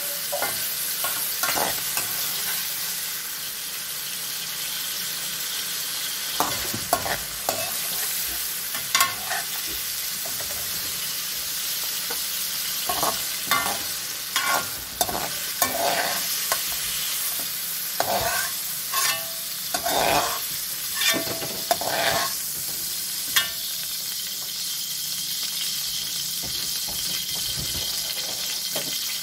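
Vegetables sizzling steadily in hot oil in an aluminium wok. A slotted metal spatula scrapes and knocks against the metal as the fried vegetables are scooped out, the strokes coming in bunches through the middle.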